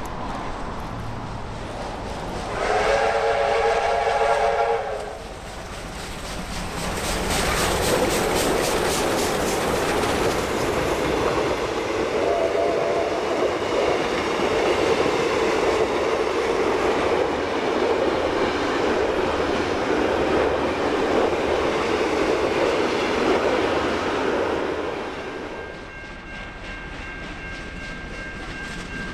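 Double-headed Victorian Railways R class steam locomotives (R711 and R761): a chime whistle blast about three seconds in, then the locomotives pass with rapid, regular beats and the train runs by with a loud, steady rush that includes a short second whistle. Near the end it drops to a fainter, steady high tone.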